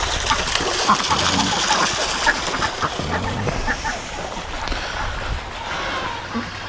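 A group of domestic ducks quacking, with many short calls overlapping one another.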